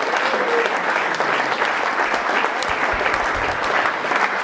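Concert audience applauding steadily, with a brief falling whistle in the first half-second.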